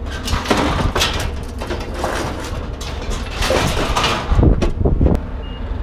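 Scrap metal being handled and worked: irregular scraping and rattling, with a few heavier knocks about four to five seconds in.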